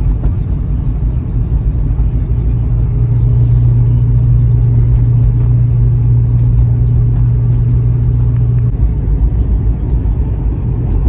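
Car driving, heard from inside the cabin: steady low engine and road rumble, with a strong engine hum for several seconds in the middle that drops away near the end.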